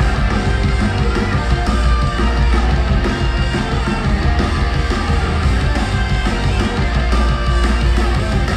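Live rock band playing a song's instrumental opening at full concert volume, with a heavy, steady low end.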